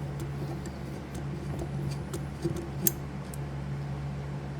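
A few light, sparse clicks of a screwdriver and small metal parts as the screws holding the coil are backed out of a pinball score reel unit, the sharpest click a little under three seconds in. A steady low hum runs underneath.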